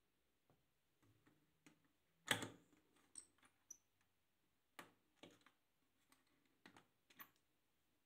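Faint scattered clicks and knocks from an Arçelik 5083 washing machine being set before it starts to fill, the loudest a sharp click about two seconds in.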